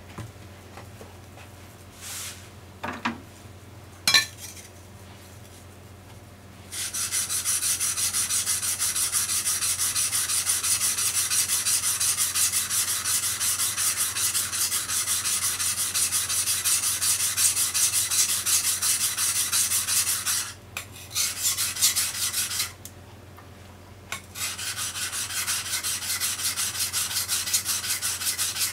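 Deba kitchen knife being sharpened on a soaked whetstone: rapid back-and-forth strokes of the steel blade grinding on the wet stone. A few light clicks and knocks come first, then the steady stroking starts about seven seconds in and runs on, with a short pause about three quarters of the way through.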